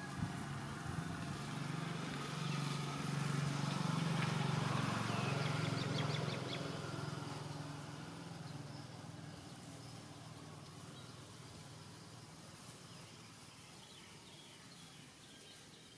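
A low engine hum of a passing motor vehicle, swelling over the first few seconds and then slowly fading away.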